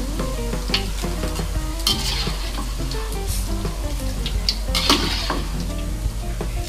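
Hot oil sizzling in a wok as deep-fried dough cookies are scooped out with a wire mesh strainer, the metal strainer scraping and clinking against the wok a few times. Soft instrumental music plays underneath.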